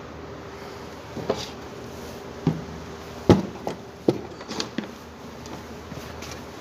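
Knocks and thumps of a car battery being handled and set down on the floor, a handful of separate knocks with the loudest a little over three seconds in, over a faint steady hum.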